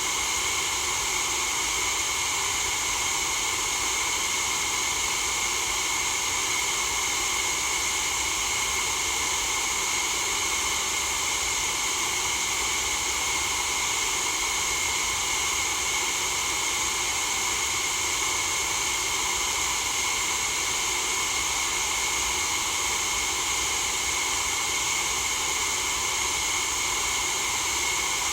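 Synthetic white noise for sleep: a steady, unchanging hiss, strongest in the upper range.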